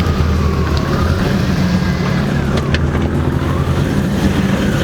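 Car engine running with a steady low drone and a higher tone that falls about halfway through, then rises again.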